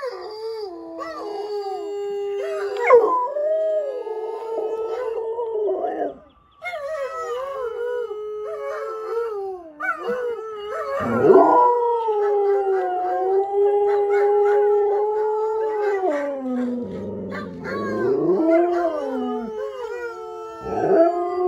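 Siberian huskies howling: long, held howls that slide up and down in pitch, with two or more voices overlapping, briefly breaking off about six seconds in. The howls come from dogs in a video playing through a laptop and from a white Siberian husky howling along with them.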